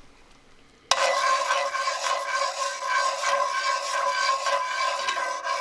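Salsa and chicken stock boiling hard and sizzling in a hot cast-iron skillet while the sauce reduces, stirred with metal tongs. The loud sizzle starts suddenly about a second in.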